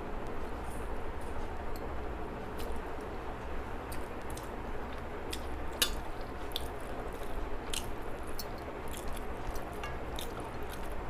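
A person chewing food close to the microphone: moist squishing and chewing with many small scattered mouth clicks and smacks, the sharpest about six seconds in.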